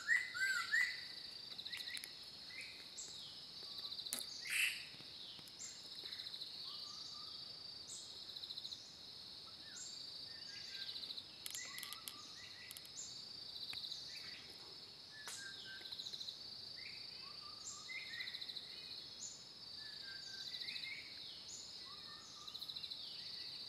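A steady high insect drone in the trees, with several birds giving short scattered chirps and calls over it; the loudest call comes about four and a half seconds in.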